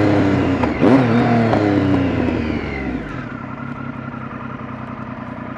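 Motorcycle engine revving hard, its pitch falling about two to three seconds in as it drops back to a quieter, steady run.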